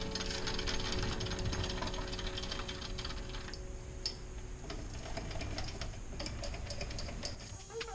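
Metal lathe running, with a rapid mechanical ticking and clicking over a low rumble.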